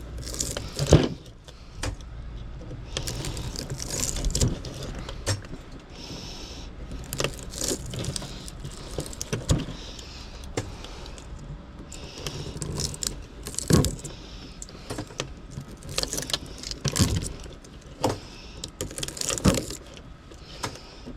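Irregular metallic clinks, knocks and jingling as small electric motors and their parts are pried and broken apart by hand for scrap copper.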